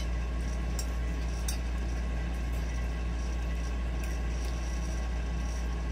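Steady low electrical hum of a spinning ceiling fan's motor, with a few faint clinks of a metal fork against a plate, the first about a second in.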